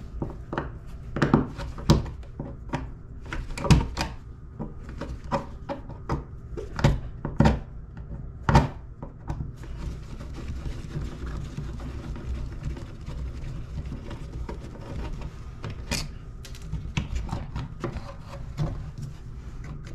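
Irregular clicks and knocks of hands and tools at work, dense for the first nine seconds or so, sparse through the middle, then coming again near the end, over a steady low hum.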